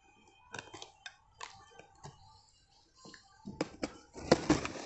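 Packing tape on a cardboard shipping box being cut open with a small blade: a few faint scrapes and clicks at first, then a louder run of scratchy cutting and tape-and-cardboard rustle over the last second or so.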